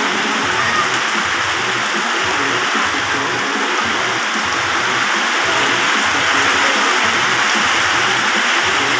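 Heavy rain falling steadily on a swimming pool's water and the surrounding wet tiles, an even hiss with no let-up.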